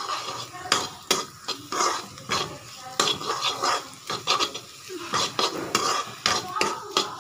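Metal slotted spatula scraping and tapping against a frying pan as eggs in oil are stirred and broken up into scrambled egg, in quick, irregular strokes.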